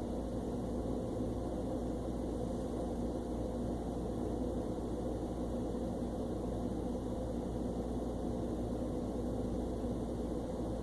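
Steady low mechanical hum, even and unchanging throughout, with a few faint steady tones in it.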